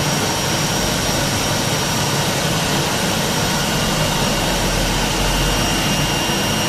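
A CNC router with a vacuum table and its two vacuum pumps running steadily: an even machine roar with a thin, constant high whine over it.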